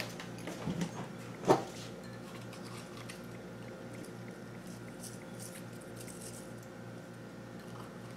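Soft, faint scraping and pattering of a spoon dabbing sauce and green onions from a small ceramic bowl onto baked eggplant halves, with one sharp clink about a second and a half in, over a steady low hum.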